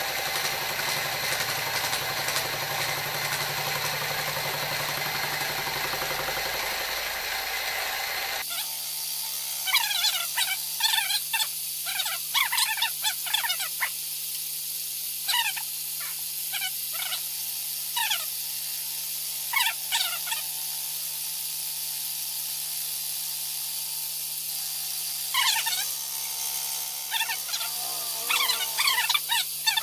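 Grizzly mini mill running with a fly cutter facing aluminum, the cutter held in a 3D-printed PLA collet: a steady motor hum. After the first few seconds, clusters of short, high chirping squeals come from the cut.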